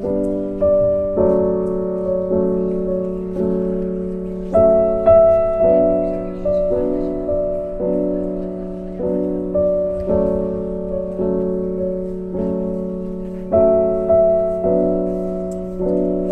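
Solo piano music: slow notes and chords, each struck and then fading, over a held low note.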